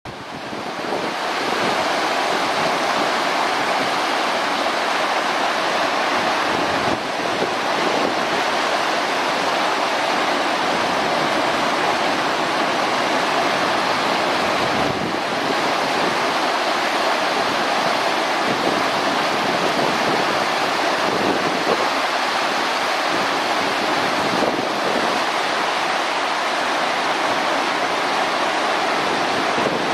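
Steady rushing of running water, an even noise with no call or knock standing out.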